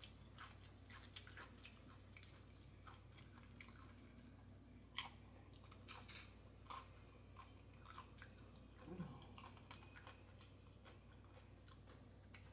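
Faint chewing of a mouthful of taco salad with tortilla chips, heard as scattered soft mouth clicks, with one louder click about five seconds in.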